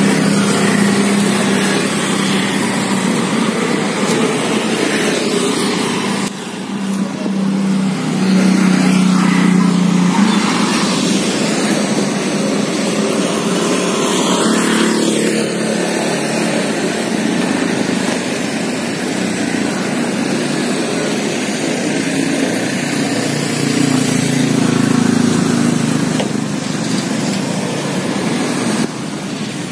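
Road traffic at a railway level crossing: small motorcycle engines running and passing continuously, with no crossing alarm sounding.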